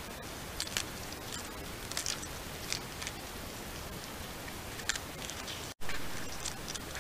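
Irregular crisp crackles and clicks of a porcupine chewing and tugging at milkweed leaves, over the steady hiss of a trail camera's microphone. The sound drops out for an instant about six seconds in.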